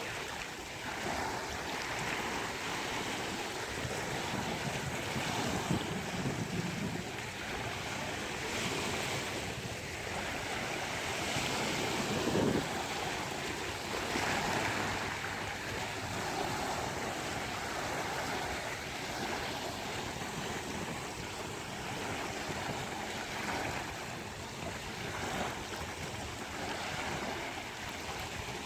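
Ocean waves breaking and washing on a beach, a continuous surf wash that swells and ebbs, with one stronger surge about twelve seconds in. Some wind buffets the microphone.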